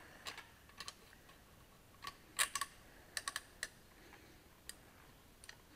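Scattered light metallic clicks and taps, about a dozen spread unevenly, from a piston ring compressor and piston being handled and fitted against a John Deere 530 engine's cylinder block.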